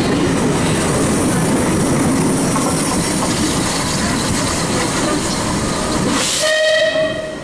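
Steam locomotive 35017 Clan Line, a rebuilt Bulleid Merchant Navy class Pacific, and its coaches running past with a steady rumble and clatter of wheels on rail. About six seconds in comes a rush of steam hiss, then a short steam whistle on one steady note lasting under a second.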